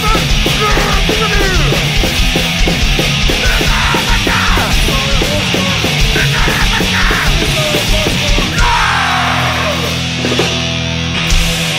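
Live hardcore punk: fast, pounding drums and distorted guitars with yelled vocals. About eight and a half seconds in the drumming stops and the band holds a ringing chord.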